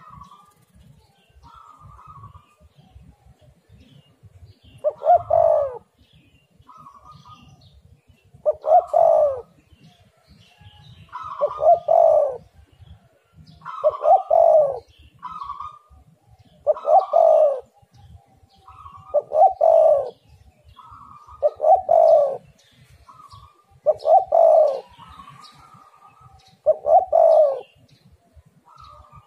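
Spotted dove cooing again and again: a loud call phrase roughly every two and a half seconds from about five seconds in, with softer short notes before and between the phrases.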